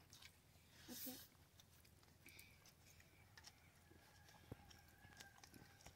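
Faint sounds of a person eating by hand: soft clicks of chewing and of fingers working rice on a steel plate, with a brief faint vocal sound about a second in.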